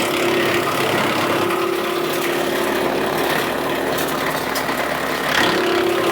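Kubota B2601 compact diesel tractor engine running steadily, powering a wood chipper, with a steady hum that drops out for about two seconds in the middle.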